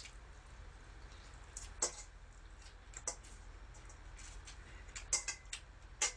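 Eating sounds: close-up chewing of dressed spinach salad, with scattered wet mouth clicks and the light clink of metal chopsticks picking in a stainless steel bowl.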